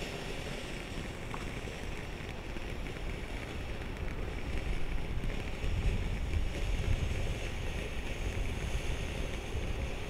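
A Bedazzled firework ground fountain spraying sparks with a steady hiss. A low wind rumble on the microphone swells about halfway through.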